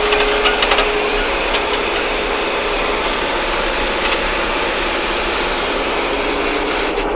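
Steady car engine and road noise heard from inside a moving car, with a few light clicks about half a second in.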